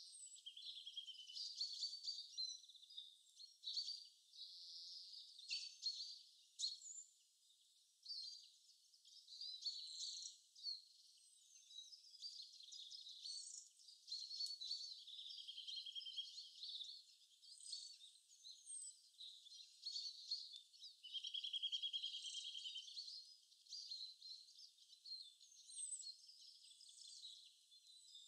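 Faint birdsong: overlapping high-pitched chirps and quick trills, with nothing in the low range.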